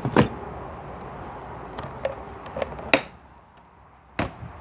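A few sharp clicks and knocks from handling a Thetford cassette toilet tank. The loudest comes just after the start, with two more about three and four seconds in.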